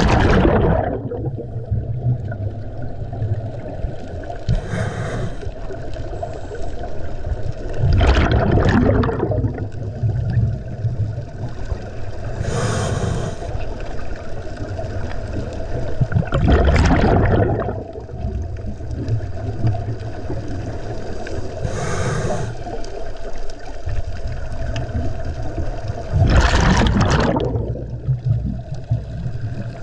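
Scuba diver breathing through a regulator underwater: four loud gurgling bursts of exhaled bubbles, about every eight to nine seconds, with a fainter hiss of inhalation between them, over a steady low hum.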